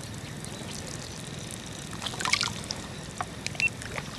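Water splashing and dripping, with a short burst of splashing about halfway through and scattered small drips around it.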